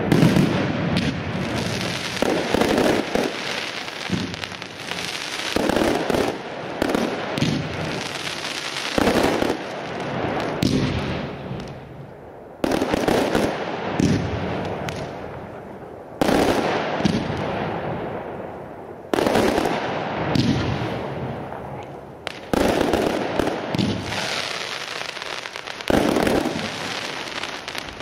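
Professional aerial firework display: shells bursting one after another with loud bangs, each bang fading out over a second or two. The first half is a dense run of bursts; after that the big bangs come about every three to four seconds.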